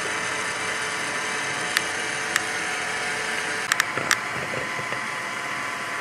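Steady machine whir with a faint hum, broken by a few sharp clicks in the middle.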